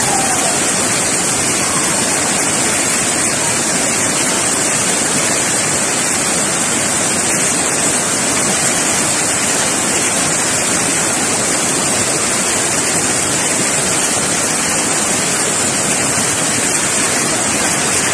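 A tall waterfall pouring onto boulders: a loud, steady, unbroken rush of falling water.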